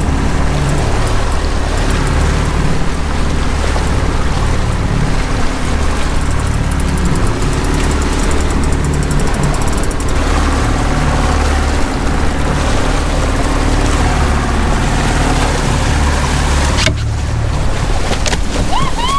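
Motorboat engine running steadily while the boat is under way, a low rumble with rushing water and wind noise over it.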